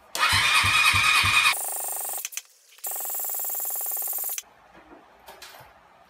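Honda Magna 250's electric starter cranking its 250 cc V-twin in two bursts, the first starting with a regular chugging and then turning to a steady whirr. The engine does not catch.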